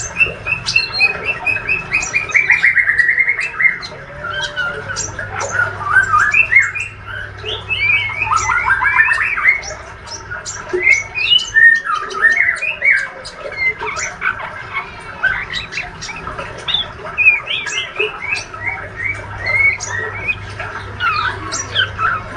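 A young male white-rumped shama twitters without a break in a rambling 'ngriwik' song: rapid trills, rising and falling chirps and short clicky notes run together. It is the practice song of a young bird learning to sing.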